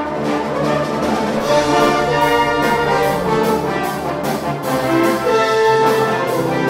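Brass band music: brass instruments playing held chords and long sustained notes.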